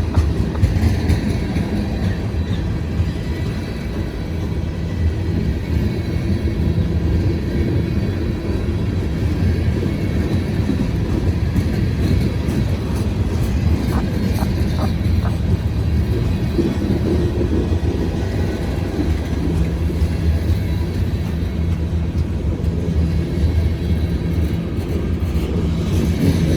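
Long freight train rolling past: a steady low rumble of wheels on rail, with a few short clicks about halfway through.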